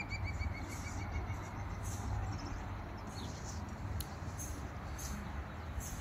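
Outdoor ambience: a small bird's rapid trill of short repeated notes fades out in the first second, then brief high chirps come scattered over a steady low rumble.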